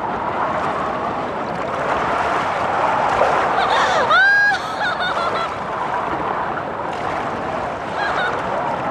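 Stormy sea: waves and wind in a steady rush of noise. About four seconds in, a single high, arching cry rises over it.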